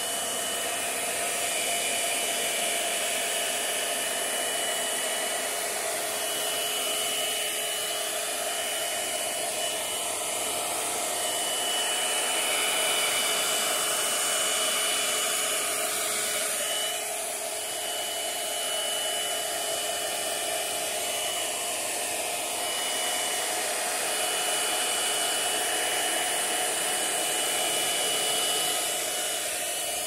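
Hair dryer blowing steadily: an even rush of air with a thin high motor whine over it, swelling and easing slightly in level.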